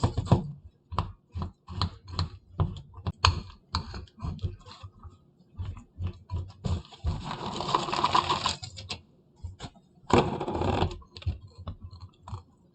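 Chopped pecans being tipped into a bowl of melted caramel and stirred in with a spoon: irregular clicks and knocks of the spoon against the bowl, with two longer spells of scraping and rattling about seven and ten seconds in.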